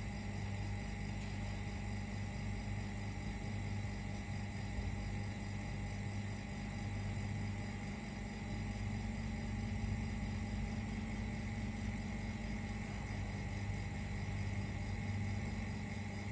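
Vacuum pump running steadily with a constant hum, pumping down the chamber of an empty kneader mixer.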